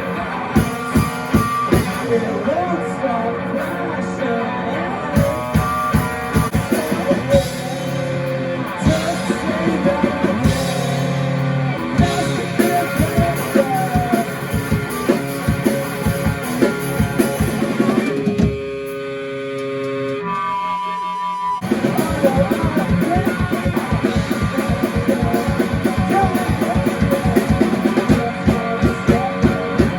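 Rock band playing, with a drum kit and guitars going at full tilt. About eighteen seconds in, the drums drop out for about three seconds, leaving only held notes, and then the full band comes back in.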